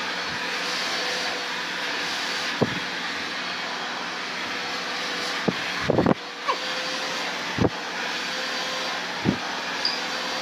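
Handheld hair dryer blowing steadily during a blow-dry, with a few short sharp knocks, the loudest a quick cluster about six seconds in.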